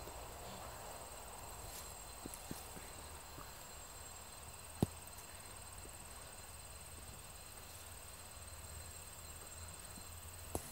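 Faint outdoor quiet with a steady, high insect drone, such as crickets or katydids, and one sharp click about five seconds in.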